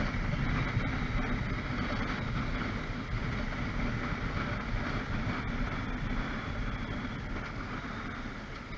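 Motorcycle engine idling while stopped, under a steady rumble of city traffic, easing off slightly near the end.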